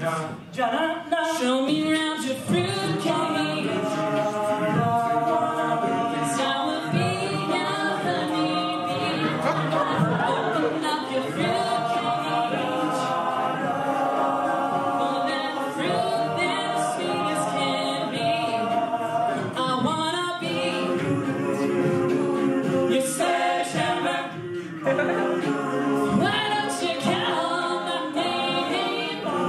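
Male a cappella group singing: a lead voice over a chorus of backing voices.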